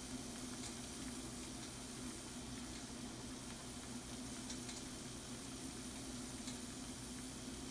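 Shrimp and mushrooms sizzling in a frying pan, a steady hiss with a few faint pops scattered through it, over a low steady hum.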